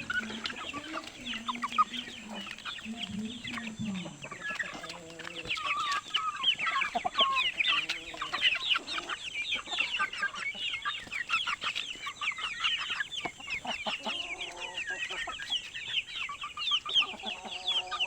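A flock of young Aseel × native cross chickens peeping continuously in quick, high, overlapping chirps, with occasional lower clucks mixed in.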